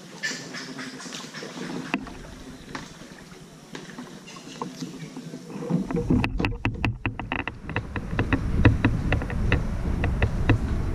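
Kayak paddling: light splashing and dripping water with scattered knocks. About six seconds in, a strong low rumble sets in, with a quick run of sharp knocks and clicks.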